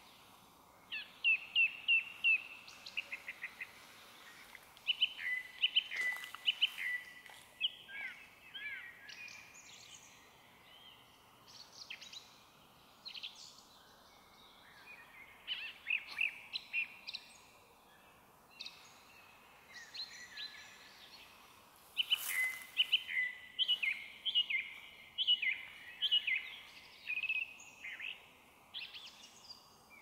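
Song thrush singing: bursts of short, clear whistled notes, each phrase repeated several times, with pauses of a few seconds between phrases. Other small birds chirp faintly in the background.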